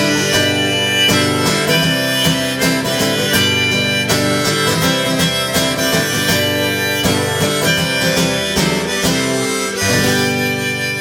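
Harmonica playing a melody over strummed acoustic guitar, the instrumental ending of a folk song, with a long held chord near the end.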